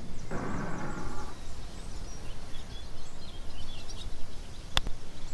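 Outdoor ambience with small birds chirping over a steady hiss, and one sharp click near the end: a golf club striking a ball.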